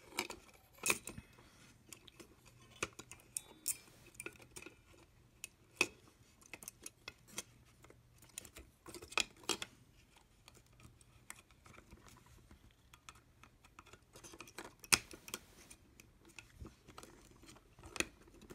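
Scattered, irregular small plastic clicks and taps from a Logitech M570 trackball's plastic shell and circuit board being handled and pressed into place, with one louder click about fifteen seconds in.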